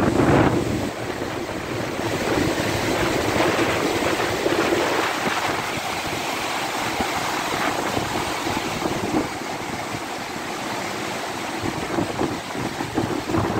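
Reservoir overflow water in full flow, pouring over the weir and down a walled stone spillway: a steady, loud rushing.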